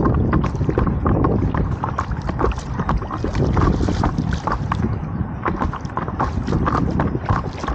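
Choppy water splashing and slapping against the nose of a paddle board as it pushes into small waves, in many short irregular slaps, with wind buffeting the microphone as a steady low rumble.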